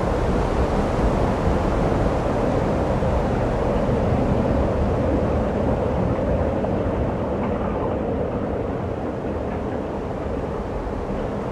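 A steady low rumbling noise with no beat or tune; the higher hiss dims about two-thirds of the way through.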